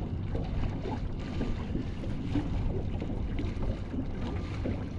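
Wind buffeting the microphone, with small choppy waves lapping and slapping against the hull of a small fishing boat.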